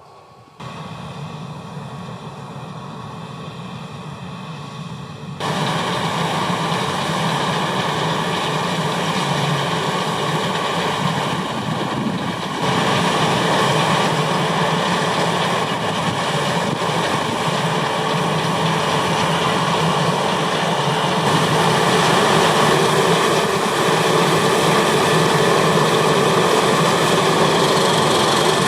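Diesel harvest machinery running steadily, a combine harvester at work in wheat with its engine and threshing noise. The sound jumps louder abruptly about half a second in, around five seconds and near twelve seconds.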